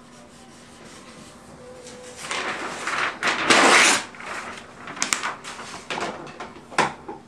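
A large sheet of paper rustling and sliding as it is lifted and pulled off a stack, loudest a little past the middle. Lighter paper-handling rustles and taps follow.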